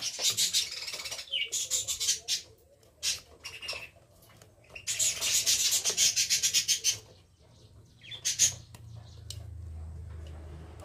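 Rapid scraping or rubbing strokes in two bursts of about two seconds each, from hand work on the fan's wiring, with a few short chirps in between and a low steady hum starting near the end.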